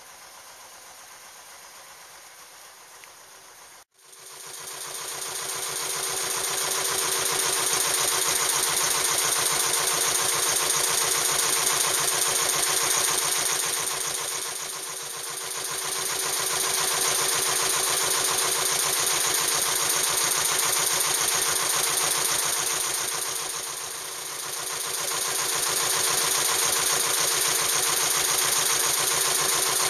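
Narrowboat engine running steadily close by, with a fast even beat, starting abruptly about four seconds in and easing off briefly twice.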